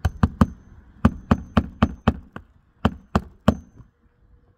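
Claw hammer striking under a lifted asphalt shingle tab: about a dozen sharp blows in three quick runs, three, then six, then three, some with a brief metallic ring, stopping about three and a half seconds in.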